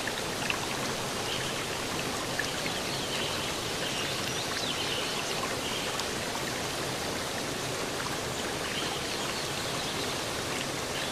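Steady rush of running water, with a few faint high chirps now and then.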